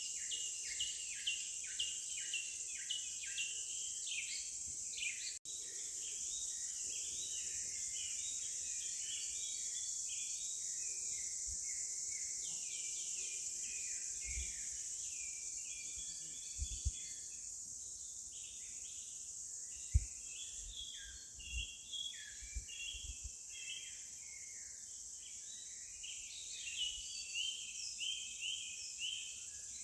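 Forest ambience: a steady high insect drone under many birds chirping and calling throughout. A few low dull bumps come in the middle.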